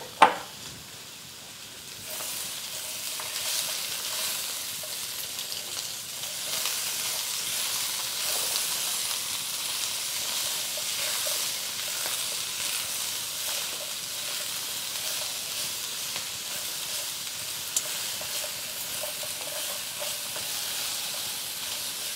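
Vegetables sizzling in hot fat in a carbon steel wok while a silicone spatula stirs and scrapes them. A short knock comes right at the start, and the sizzle grows louder about two seconds in, after the fresh fat goes in.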